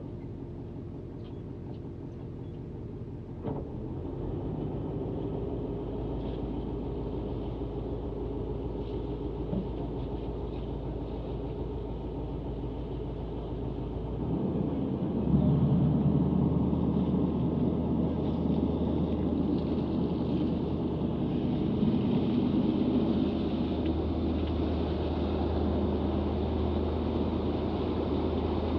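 Fishing boat's engine running at a low, steady hum, then throttling up about halfway through and running louder and deeper as the boat gets under way.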